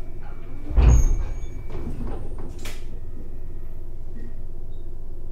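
Passenger sliding doors of an Abukuma Express AB900 series train shutting with a heavy thud about a second in, followed by a few lighter knocks and a sharp click, over the steady low hum of the train standing at the platform.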